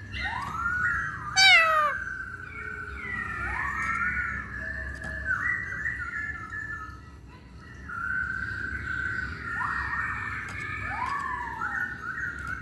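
Hong Kong poksay (masked laughingthrush) calling: a string of whistled notes that arch up and then down, overlapping one another. A loud, sharply falling call comes about a second and a half in.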